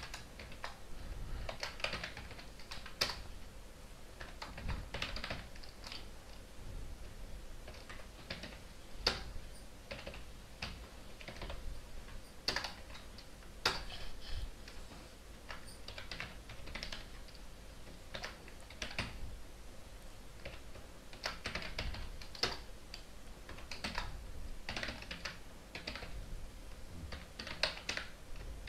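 Typing on a computer keyboard: irregular keystroke clicks in short runs, with brief pauses between them.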